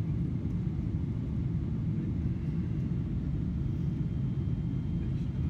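Steady low rumble of a Boeing 777-300ER's cabin noise, heard from an economy window seat: engine and airflow noise at an even level.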